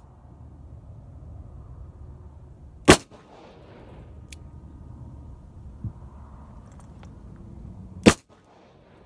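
Smith & Wesson revolver fired twice, single shots about five seconds apart, each a sharp crack with a short echo trailing off. A steady low rumble runs underneath.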